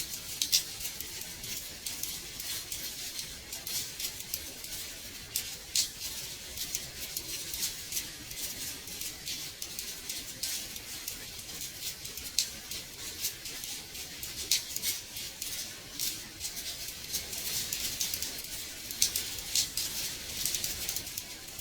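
Gentle rain on a window: a steady hiss of falling rain with irregular sharp drops tapping on the glass.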